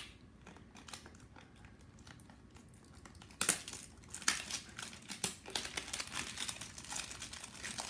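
Funko Mystery Mini blind-box packaging being opened by hand. It starts with faint handling, then from about three and a half seconds in comes sharp crinkling of the wrapper, growing denser toward the end.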